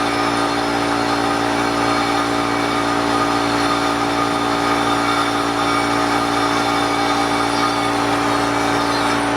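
Forrest Manufacturing Model 480A horizontal bandsaw running steadily, its blade cutting a cast aluminum workpiece, with a constant hum and hiss.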